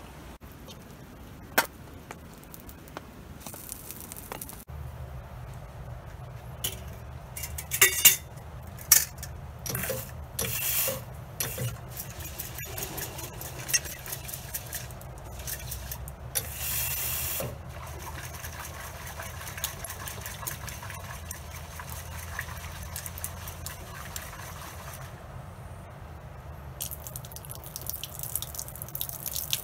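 Water splashing in a concrete sink trough as a metal cookpot is rinsed by hand, with sharp clinks of the metal pot in two clusters, then water poured out of the pot splashing into the trough near the end. The first few seconds hold only a steady hiss.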